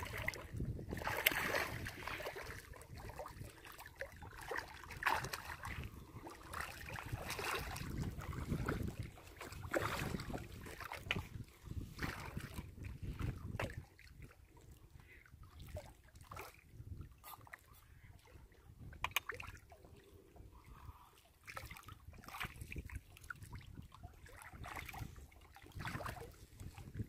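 Hooked catfish thrashing and splashing at the water's surface as it is reeled in against the rocks, in irregular bursts that are busiest in the first half.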